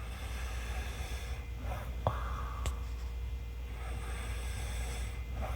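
A person breathing audibly through the nose in slow, repeated breaths, with a short sharp click about two seconds in.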